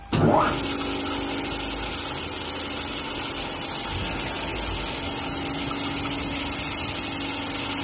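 CNC bridge saw's motor starting with a short rising whine, then running steadily with a low hum and a high whine.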